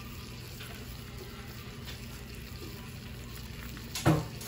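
Shrimp, butter and freshly minced garlic frying in a pan on medium heat, a steady quiet sizzle, with one brief louder sound about four seconds in.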